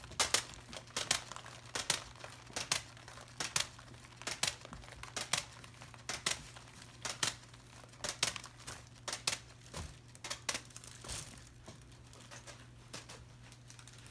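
Two paint-covered canvases whirling on a cake-decorating turntable, giving a run of sharp ticks and crackles about three a second that thin out and die away near the end as the spin slows. A faint steady low hum lies underneath.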